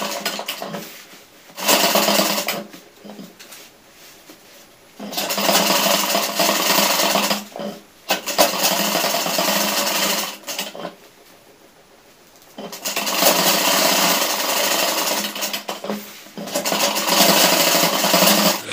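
Electric sewing machine running in short runs of one to three seconds, stopping and starting about six times, as a seam is stitched along a trouser pocket welt.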